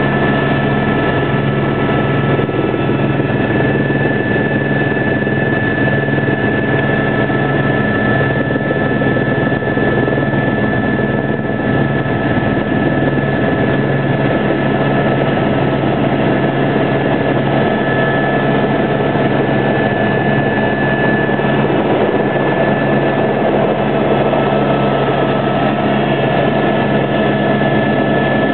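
Helicopter running close by: a steady high turbine whine over the constant rotor and engine noise, unchanging in level throughout.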